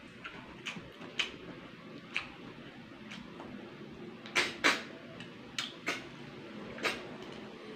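A series of short, sharp slurps and mouth smacks from sucking cooked freshwater snails out of their shells while eating, the loudest pair about halfway through.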